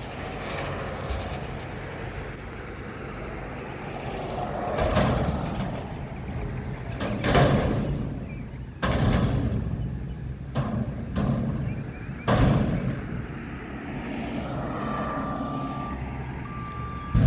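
Mack garbage truck with a McNeilus front-loader body, its diesel engine running, with several loud surges of hissing noise about 7, 9 and 12 seconds in. A steady beep sounds near the end.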